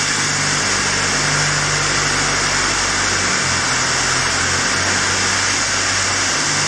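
Alimak raise climber running as it travels up the raise: a loud, steady hiss over a low motor hum that shifts in pitch a couple of times around the middle.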